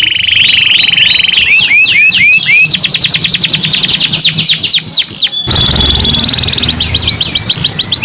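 Domestic canary singing a long, loud run of fast trills and rolls. A buzzy held trill gives way to hooked notes and then a rapid run of repeated sweeping notes. The song breaks off abruptly just past halfway and resumes at once with another trill and more sweeping notes.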